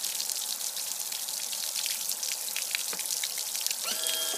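A crackly hiss with scattered clicks. About four seconds in, a steady electric whine starts: the outboard's power tilt/trim motor running.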